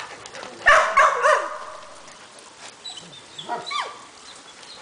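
Dog barking and yipping: a loud burst of barks about a second in, then a few fainter high yelps falling in pitch around three and a half seconds in.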